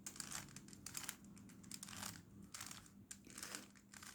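Faint, irregular plastic clicking and rasping of a 3x3 Rubik's Cube's layers being turned in quick succession as a move sequence is run.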